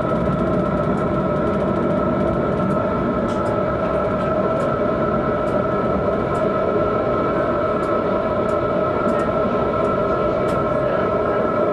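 Tram running steadily along street track, heard from inside the driver's cab. A constant low rumble sits under a steady whine, with occasional light clicks scattered through.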